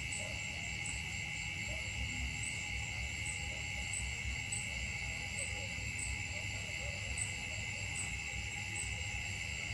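Steady chorus of insects: a continuous high trill with faint higher pulses repeating a little more than once a second, over a low rumble.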